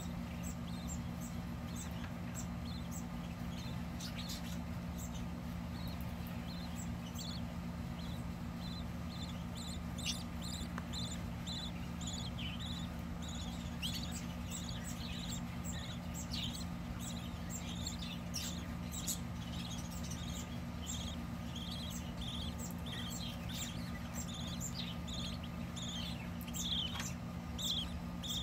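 Newly hatched budgerigar chicks peeping in the nest box: many short, high cheeps, coming thicker through the second half, over a steady low hum.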